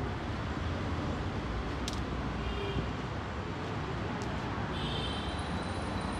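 Steady ambient noise with a low rumble, of the kind that road traffic makes, and two faint clicks, about two and four seconds in.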